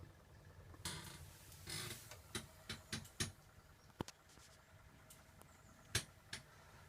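Hoover Logic A3790 washing machine in its wash stage, drum turning the load. There are two short swishes about a second in, then light irregular clicks and knocks over a faint steady motor hum.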